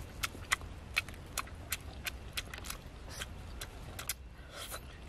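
Wet smacking and clicking of someone chewing a mouthful of grilled fish, sharp mouth clicks about three a second, over a faint low rumble.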